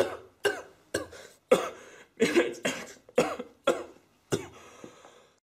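A young woman coughing in a string of about nine short coughs, roughly two a second, getting weaker toward the end, as someone claiming to be sick.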